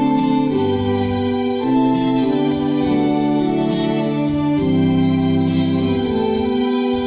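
Two-manual electronic home organ playing slow sustained chords that change about once a second over held bass notes, with a quick, even pulse in the treble.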